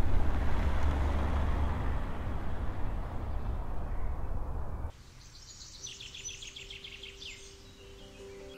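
A car driving along the road, its engine and tyre rumble slowly fading as it moves away, then cut off suddenly about five seconds in. Birds then chirp in a quick trill, and a low steady music note comes in.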